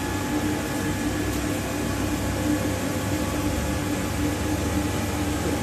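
Film slitter rewinder running: a steady, even machine whir with a constant hum, with no change in speed.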